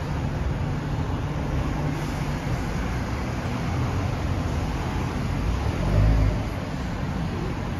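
Steady city road traffic, with a low rumble that swells to its loudest about six seconds in as a vehicle passes close.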